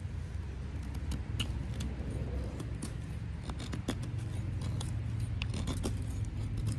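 Cruwear-steel knife blade shaving curls off an old, dry stick while carving feather sticks: a run of short, sharp scrapes and clicks, irregularly spaced, over a low, steady rumble.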